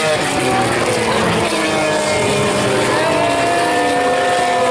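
FIA Formula 3 race cars' engines at racing speed going past, several engine notes at once sliding in pitch as the cars pass, one rising and then dropping away near the end.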